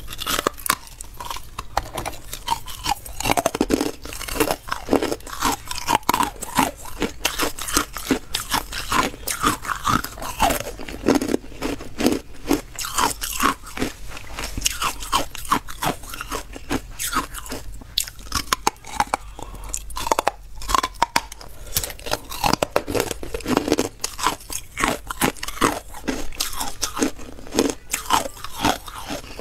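Carbonated ice being bitten and chewed close to a microphone: a dense, unbroken run of sharp crunches and crackles.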